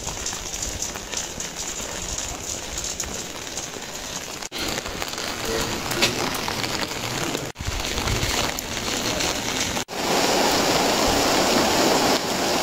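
Steady rain falling, heard across several short clips joined by cuts; the rain is heavier and louder for the last two or three seconds.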